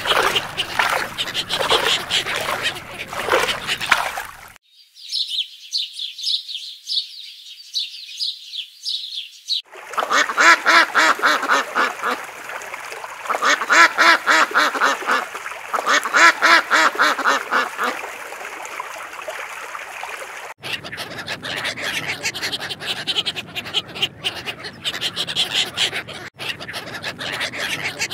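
A run of duck calls. First comes a fast series of thin, high calls. Then mallard hens give loud runs of quacks. Near the end a crowd of ducklings peeps without pause.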